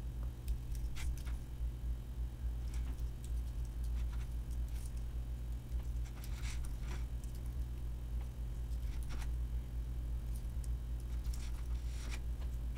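Computer keyboard keystrokes, faint and irregular, as a line of text is typed, over a steady low hum.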